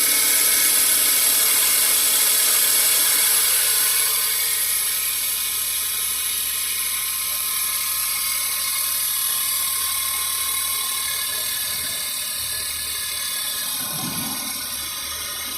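Suzuki Jimny JB23's engine running with a steady high-pitched whir and rattle from the belt tensioner pulley, an abnormal noise that is much louder when driving.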